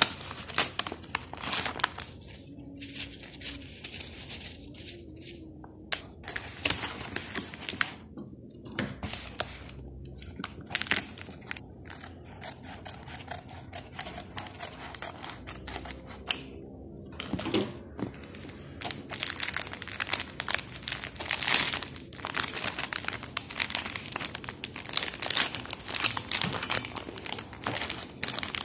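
Plastic snack packaging crinkling and crackling irregularly as it is handled: a bag of dried fish fillet, then a pack of roasted nori sheets that is pulled open. The crinkling is busiest in the last third.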